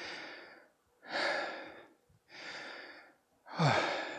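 A man breathing hard in four heavy breaths about a second apart, the last and loudest turning into a voiced, falling sigh near the end. He is recovering from a 30-second bout of jump sit-to-stands.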